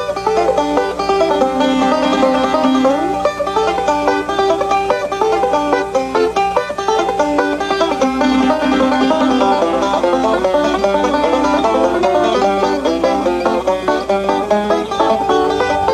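Banjo music: fast, bluegrass-style picking in a quick unbroken run of plucked notes.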